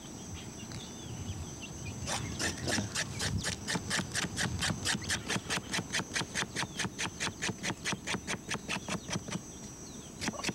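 Knife blade scraping the bark off a freshly dug root in quick, even strokes, about five a second, starting about two seconds in and pausing briefly near the end.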